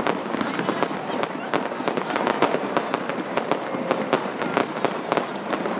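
Aerial fireworks display going off in a rapid, unbroken run of sharp pops and bangs, several a second.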